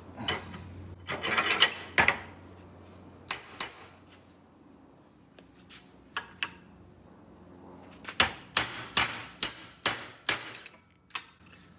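Steel punch clinking and scraping against the stuck lever pin of a rusty VW Beetle pedal cluster clamped in a vise. The short sharp metallic clicks come in clusters, the densest run near the end.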